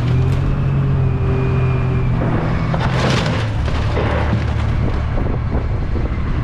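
A hot tub being crushed and broken apart by heavy equipment: loud cracking and crunching impacts, strongest about three seconds in and again near the end. A diesel engine runs steadily underneath during the first couple of seconds.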